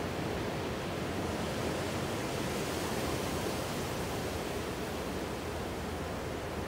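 Ocean surf washing ashore: a steady rush of water that swells slightly a couple of seconds in.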